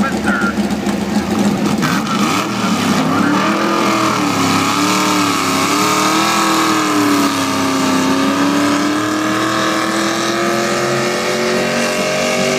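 V8 engine of a hot-rodded International Harvester W-400 tractor running hard under load in a tractor pull. Its revs rise about two seconds in, surge up and down for several seconds, then hold and slowly climb.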